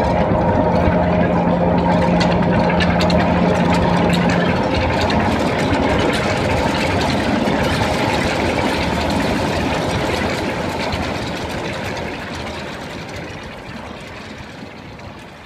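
Live electronic music over a multi-speaker spatial sound system: a dense, noisy drone with a held low tone for the first few seconds, fading out steadily over the last five seconds.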